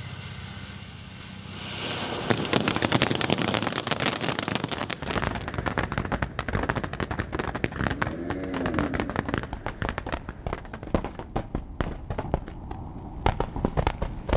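Ground fountain fireworks spraying. A hiss builds over the first two seconds, then gives way to dense, rapid crackling that keeps going.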